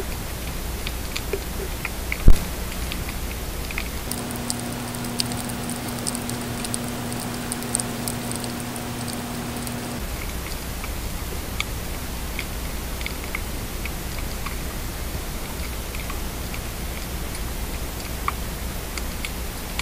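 Underwater ambient sound picked up by an underwater camera sinking through seawater: a steady hiss crackling with many small sharp clicks, and one loud click a couple of seconds in. From about four to ten seconds a steady low hum of a few tones runs under the hiss.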